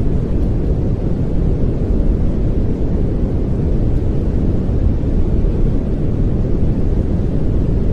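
Steady pink noise played as a calming background sound, an even, unbroken hiss weighted toward the low end, so it sounds like a deep rush with little top.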